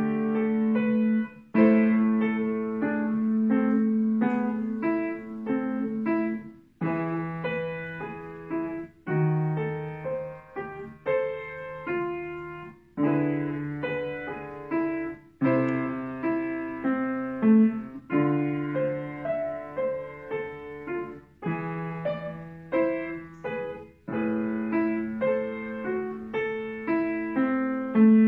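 Kawai upright piano played solo: a classical piece of sustained bass notes under moving chords and melody, in phrases separated by brief breaks.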